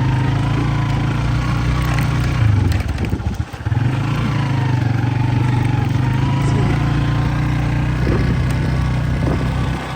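An engine running steadily with a low, even hum, dropping away briefly about three seconds in and then picking up again.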